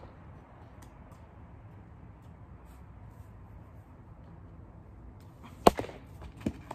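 Baseball striking a rebound net with one loud sharp smack near the end, followed less than a second later by a softer knock as it bounces on the concrete.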